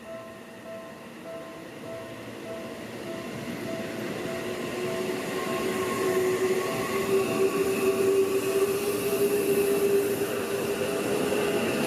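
Railway level-crossing warning bell ringing in a steady quick repeat while a Seibu Ikebukuro Line train approaches and passes. The train grows louder from about three seconds in, with a steady hum over its running noise.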